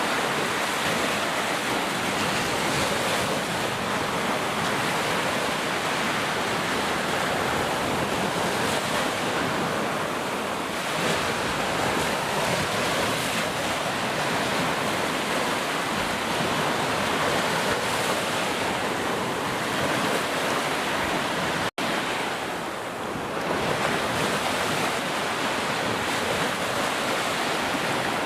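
Heavy rain falling in a steady, dense hiss, with a split-second dropout about three quarters of the way through.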